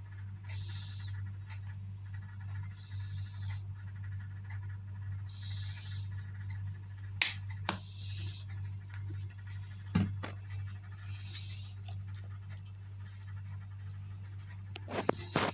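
A steady low hum runs under soft hissing sounds that come back every two to three seconds, with a few sharp clicks, one about seven seconds in, one about ten seconds in, and a cluster near the end.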